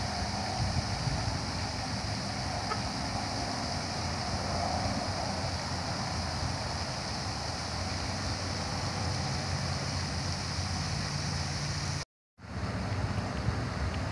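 Steady rushing hiss of water from large pond spray fountains, with wind rumbling on the microphone. The sound cuts out for a moment near the end.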